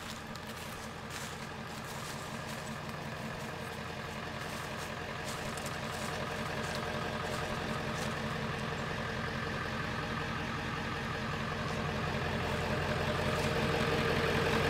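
Ford pickup truck's engine idling steadily, growing gradually louder toward the end.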